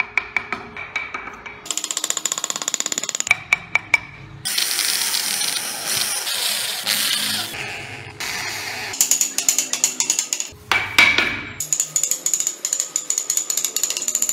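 Wood chisels and gouges cutting into wood by hand, heard as runs of rapid clicking taps that change abruptly between edited clips. A stretch of steady rasping noise comes a few seconds in. Music plays underneath.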